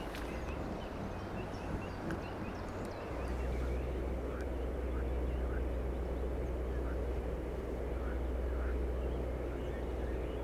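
Riverbank ambience: a steady low rumble, heavier from about three seconds in, with a bird's short chirps repeating every second or so over it.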